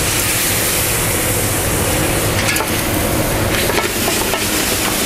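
White wine sizzling in a hot sauté pan of chicken and vegetables as it deglazes the pan, a steady loud hiss. A few light clicks of a utensil or pan come about halfway through.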